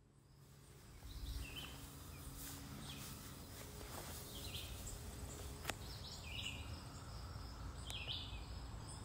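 Faint outdoor ambience: a steady low rumble with several short bird chirps scattered through it, and a single sharp click a little before six seconds in.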